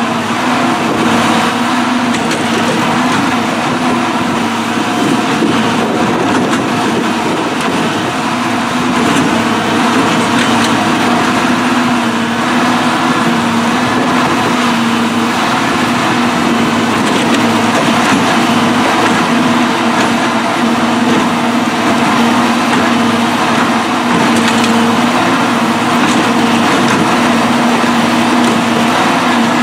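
Railroad tie puller working along the track, its engine and hydraulics running loud and steady with a constant hum as it pulls old wooden crossties out from under the rails.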